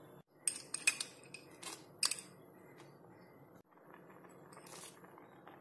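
A handful of short, sharp clicks and taps from a wooden spatula scooping up crushed nuts and setting them into a pan of kheer, bunched in the first two seconds, then only faint low rustling.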